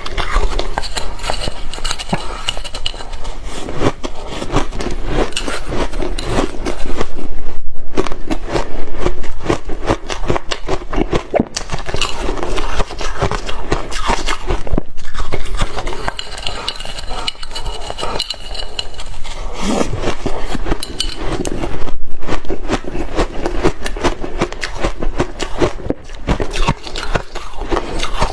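Shaved ice crunched between the teeth, with chopsticks scraping and clinking against the ice and its dish; a dense, continuous crackle with louder stretches about seven and twenty-two seconds in.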